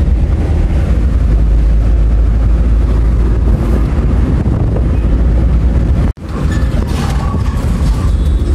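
In-cabin driving noise of a Maruti Alto on the move: steady engine and road rumble, heavy in the low end. The sound cuts out abruptly about six seconds in, then the driving noise resumes.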